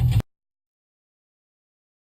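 Rock music with guitar and heavy bass cuts off abruptly a quarter second in, followed by dead digital silence.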